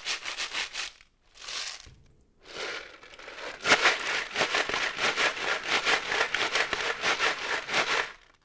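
Plastic bottles filled with dried beans shaken as shakers (ganzá), giving a rhythmic rattle; a brief burst and pause about a second in, then steady rhythmic shaking for about five seconds that stops just before the end. Two bottles of different sizes are compared, so the two bursts are two different shaker sounds.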